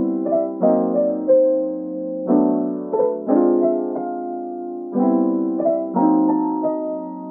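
Background music: a mellow piano playing slow chords, a new one roughly every second, with a few short melody notes on top.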